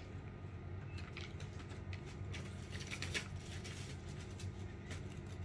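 Scattered light clicks and rustles, thickest in the middle, over a steady low hum.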